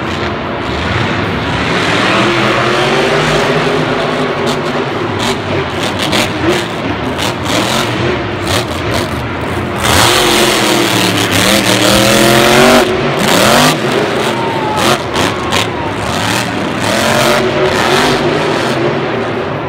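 Grave Digger monster truck's supercharged V8 engine revving up and down over and over as the truck drives and jumps. It is loudest about halfway through, where the revs climb sharply several times.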